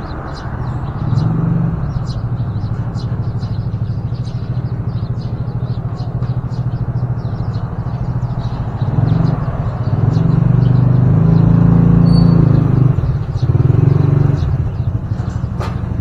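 An engine running steadily, a low hum that grows louder about nine seconds in and eases near the end, with quick faint high ticks over it.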